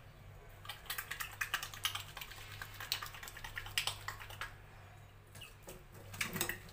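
Water splashing and dripping in a stainless steel sink as a wet chicken is washed by hand: a run of quick, irregular small splashes and patters that thins out about halfway and picks up again near the end.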